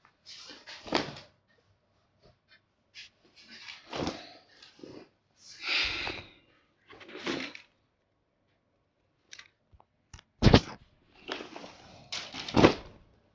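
Irregular rustling and handling sounds from unpacking, with two sharp knocks near the end.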